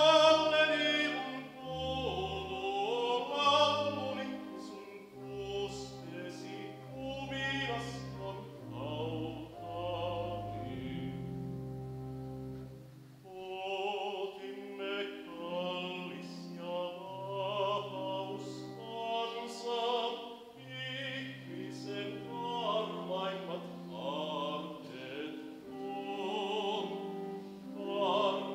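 Male solo voice singing in a trained, classical style with vibrato, accompanied by a church pipe organ holding sustained deep pedal notes.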